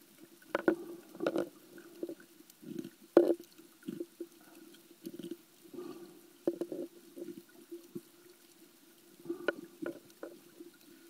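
Muffled underwater gurgling and sloshing picked up by a camera submerged in the sea, coming in irregular soft bursts with a few sharp clicks.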